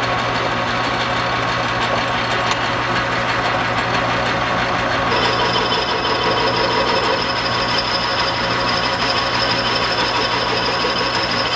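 Metal lathe running with a steel faceplate spinning in the chuck, the tool cutting a shallow drip-ring groove into the steel face. About five seconds in, a high steady whine joins the steady machine hum as the cut bites.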